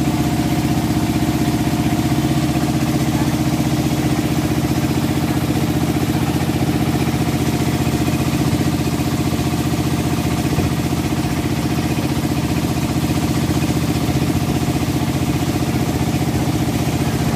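A boat's engine running at a steady pace, with water rushing and churning along the hull.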